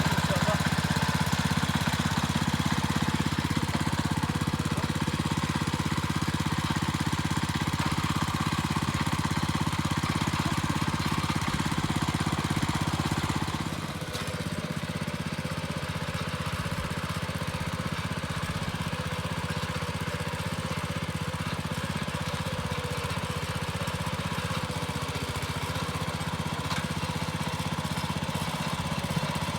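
Petrol rotary tiller's small engine running steadily, becoming a little quieter about halfway through.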